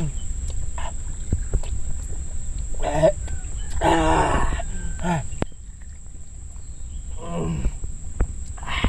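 A man's throaty vocal sounds while drinking from a clay jug: short grunts, then a loud drawn-out exclamation about four seconds in, and more short grunts near the end, over a low rumble of wind.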